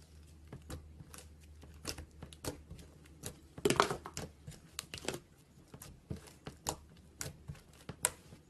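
Slime being mixed, giving irregular sticky clicks and pops, with a denser, louder cluster a little before the middle.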